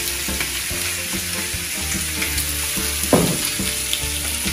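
Steak sizzling and crackling steadily in oil on an electric countertop grill plate, with a brief knock about three seconds in.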